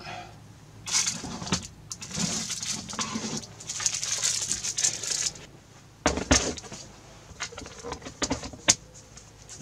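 Plastic storage boxes and bags being rummaged through and pulled from a cabinet shelf: a few seconds of rustling and scraping, one sharp knock about six seconds in, then light plastic clicks as a box lid is handled.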